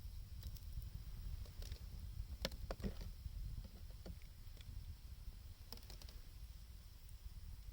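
Wood fire crackling with scattered sharp pops, a cluster of them about two and a half to three seconds in, over a steady low rumble of blizzard wind.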